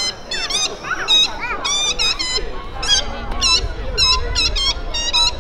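A street clown's high, squeaky honks, sounded in quick short bursts about twice a second with uneven gaps.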